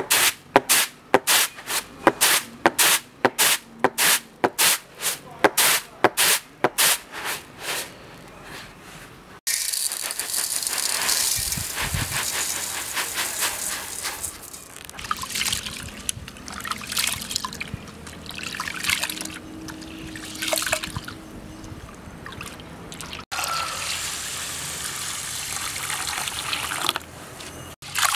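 Red rice being winnowed on a winnowing tray: the grains are tossed in a steady rhythm of about two swishes a second that die away. Then comes a long hiss of dry rice grains pouring and shifting in a metal bowl, and near the end the splashing of the rice being washed in water by hand.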